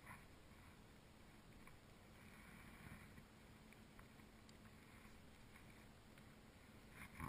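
Near silence: a faint, even background hiss, with a brief cluster of small knocks right at the end.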